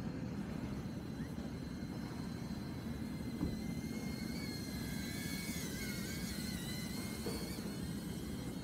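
DJI Avata FPV drone's propellers whining in flight, a thin high tone that wavers in pitch as the throttle changes, over a steady low rumbling noise.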